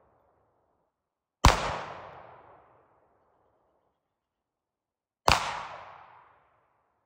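Two pistol shots, about four seconds apart, each sharp crack followed by an echo that fades over about a second.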